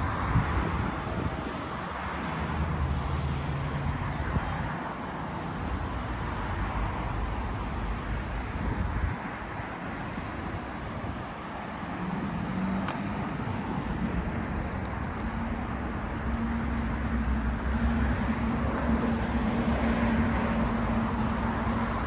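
Road traffic: motor vehicles driving by on a street, with a low engine hum that becomes steadier and more prominent about halfway through.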